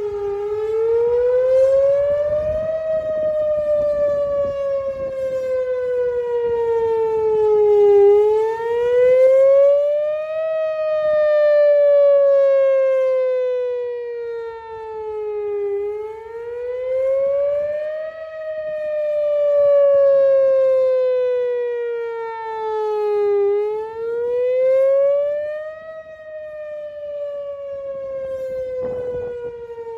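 Outdoor tornado warning siren sounding a steady wail. Its pitch rises over about two and a half seconds, then falls more slowly over about five, in a cycle that repeats about four times, and its loudness swells and dips as it goes.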